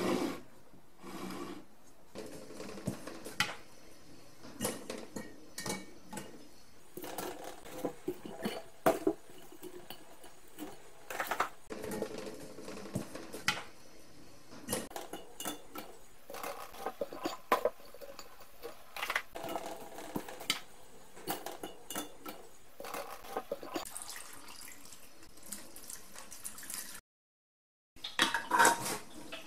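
Hands handling vegetable pieces and a clear plastic food container in a steel sink: scattered knocks, taps and clicks of plastic. A louder burst of clatter comes near the end as the container's lid is fitted on.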